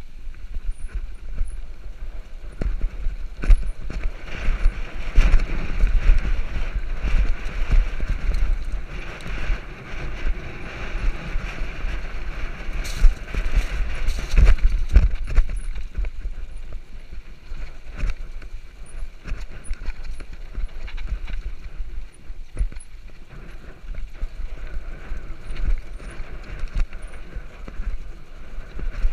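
Mountain bike descending a rough dirt track, heard from a handlebar-mounted camera: a constant low rumble with frequent knocks and rattles as the bike hits bumps.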